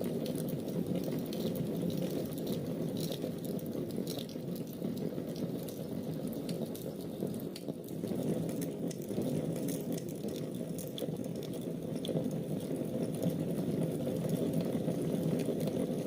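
Wood fire burning in a fireplace: a steady low rush of flames with scattered small crackles and pops.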